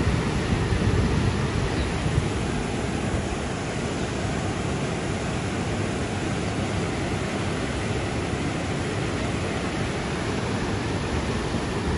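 Steady rush of fast-flowing floodwater, an unbroken noise heaviest in the low end, easing slightly after about three seconds.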